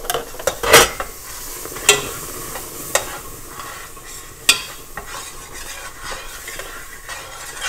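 A metal spoon stirring hot roux just thinned with hot water in a stainless steel stockpot, scraping and knocking against the pot. Several sharp knocks come in the first five seconds, loudest about a second in, over a steady sizzle from the hot mixture.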